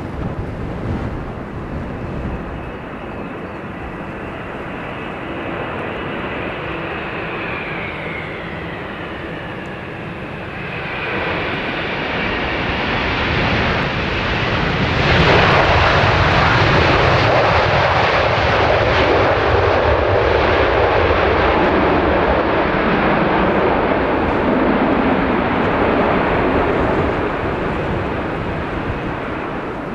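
McDonnell Douglas MD-11 freighter's three jet engines on short final, a whine that falls in pitch as it passes. After touchdown, about halfway through, the noise jumps into a loud rush of reverse thrust that slowly dies away as the jet rolls out.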